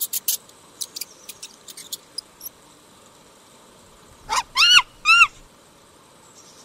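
Mouse squeaking in a quick run of short, very high squeaks for the first couple of seconds, then a monkey giving three short calls, each rising and falling in pitch.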